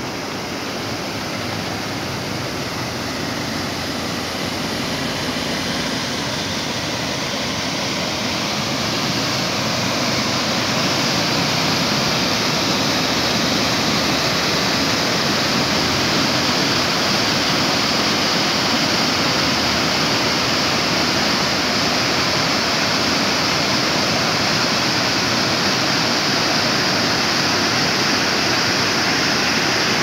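Small waterfall cascading over rocks in a stream: a steady rush of water that grows louder over the first ten seconds or so, then holds steady.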